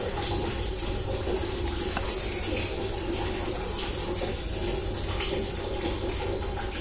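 A steady rushing background noise with a low hum underneath, unchanging throughout.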